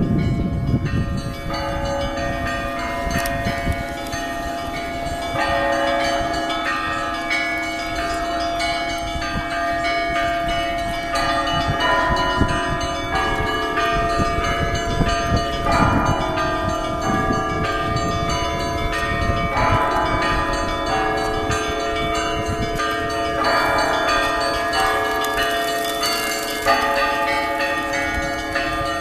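Russian Orthodox church bells ringing an Easter peal: several bells of different pitches are struck in a running pattern every second or two, each note ringing on, over a lower bell tone that hums throughout.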